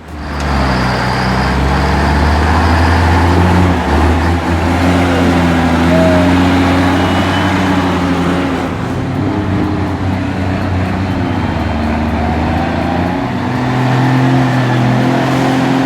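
Heavy vehicle's diesel engine running hard and steadily, its pitch shifting about halfway through and rising again near the end.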